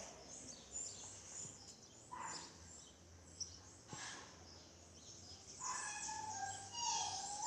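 Faint bird calls over a low steady hum, with a cluster of several calls near the end.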